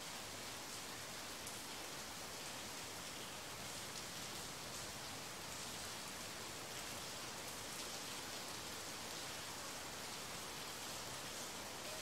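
Steady rain: an even hiss with faint ticks of single drops.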